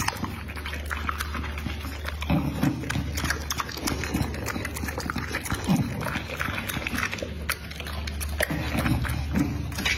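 A dog eating raw meat from a metal plate: irregular wet chewing, smacking and licking, with many small clicks as its mouth works against the plate.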